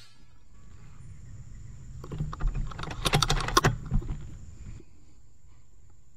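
Handling noise from a rifle-mounted setup: a run of mechanical clicks and knocks over a low rumble, lasting about three seconds. It fits a suppressed FX Impact M3 .25 air rifle having its side-lever action cycled and being re-aimed between two shots.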